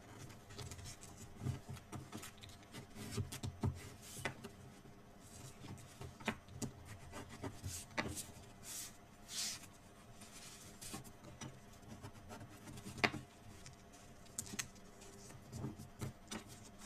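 Faint rubbing and creasing of heavy cardstock or chipboard as its edges are folded in and burnished with a bone folder, with scattered sharp clicks and taps, the loudest about 13 seconds in.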